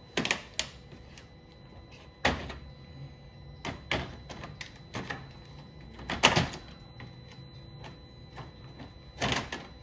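Long-handled loppers worked inside a car's plastic active grille shutter assembly: a string of sharp, uneven clicks and snaps, about seven in all, the loudest about six seconds in.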